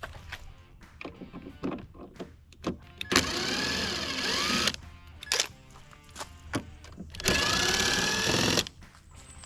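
Two loud whirring bursts of a powered driver, each about a second and a half, backing out the Torx bolts that hold the bracket on a 2021 Ford Bronco's cowl. Faint background music and small handling clicks run between them.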